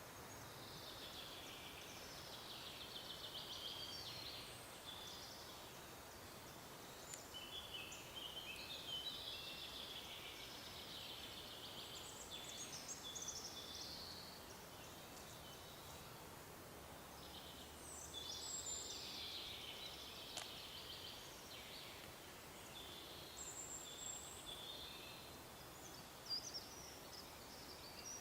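Songbirds singing in several separate high, warbling phrases over a faint, steady background hiss of forest ambience.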